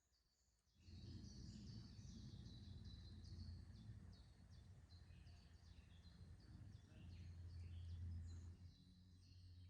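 Small birds singing, with many quick chirps and trills, over a low steady rumble. The sound starts abruptly about a second in, and the rumble swells briefly near the end.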